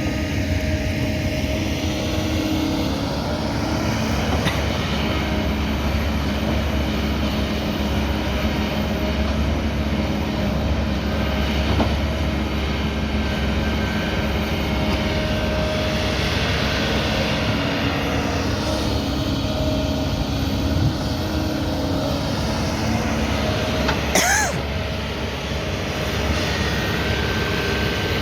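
Kobelco 220 excavator's diesel engine running steadily under working load, its pitch shifting a little, with one brief sharp metallic sound near the end.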